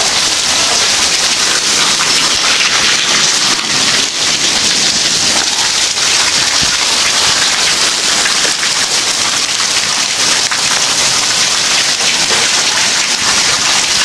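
Heavy rain pouring down in a steady, dense patter of drops.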